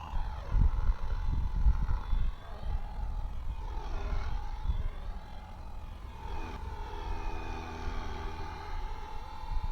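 Fly Wing FW450L V3 electric RC helicopter in flight: a steady rotor and motor whine whose pitch dips and rises again twice, around four and six seconds in, over a heavy low rumble that is strongest in the first couple of seconds.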